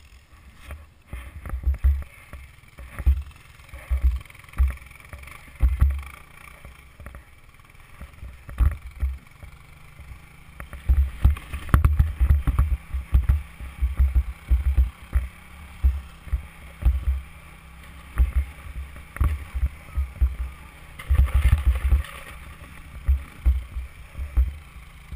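Gusty wind buffeting the microphone of a helmet-mounted action camera, with irregular low thumps and bumps as the rider is towed over snow on a strap behind an ATV. A faint steady engine hum from the ATV runs underneath in the middle stretch.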